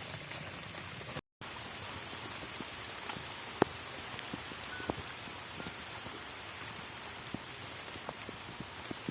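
Steady rain falling, with scattered sharp taps of drops landing close by. The sound cuts out completely for a moment about a second in.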